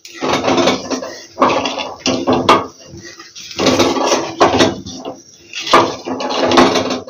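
Metal spatula scraping and pushing around the bottom of a kadai in hot oil, about seven strokes with short pauses, loosening fried fish bits stuck to the pan.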